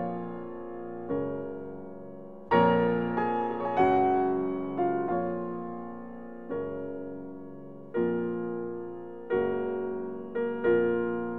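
Slow, gentle solo piano music. Chords are struck about every second or so and left to ring and fade.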